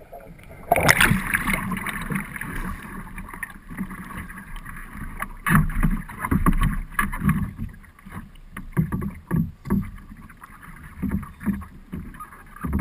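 Water rushing and splashing as a capsized Greenland-style kayak rolls back upright and the deck-mounted camera breaks the surface about a second in. Then irregular splashes and water slapping against the hull as the kayaker paddles.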